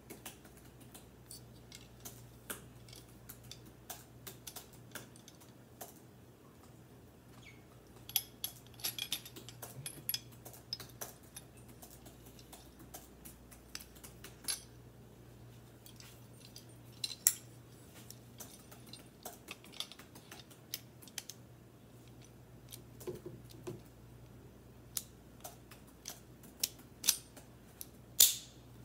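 Steel parts of a homemade takedown .22 rifle clicking and clinking as it is unpacked and fitted together: scattered sharp clicks, a busy cluster about a third of the way in, and the loudest snaps near the end. A faint steady low hum lies underneath.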